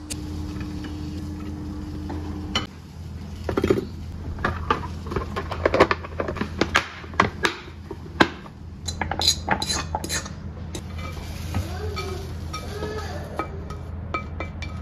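Clinks and clicks of a stainless-steel lunch box tray and its plastic clip-on lid being handled and closed, most of them between about three and ten seconds in. A steady low hum runs underneath.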